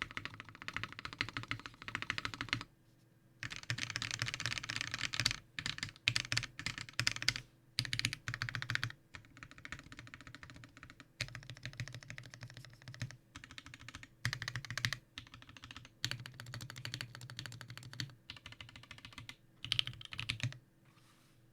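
Steady typing on a custom mechanical keyboard with lubed and filmed Marshmallow switches, GMK keycaps and a brass-bottomed case. The keys clack in fast runs broken by brief pauses, and the typing stops shortly before the end.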